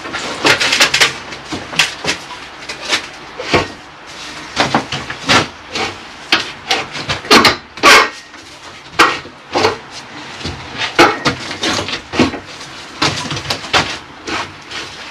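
Irregular sharp knocks and taps, a few a second, the loudest about halfway through, as the acrow props and the new steel beam are worked on and adjusted by hand and tool.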